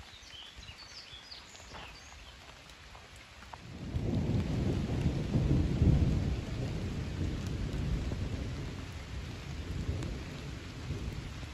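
Rain falling steadily, with a long roll of thunder that builds about four seconds in, is loudest around six seconds and slowly rumbles away.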